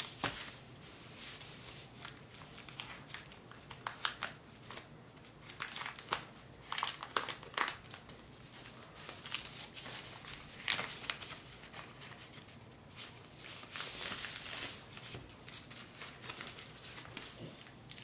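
A frosted plastic bag crinkling in irregular bursts as a keyboard is pulled out of it and the bag is handled.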